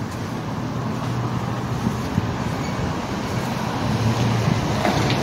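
Steady street traffic noise: vehicles running on the road, with a low engine hum under an even wash of road noise.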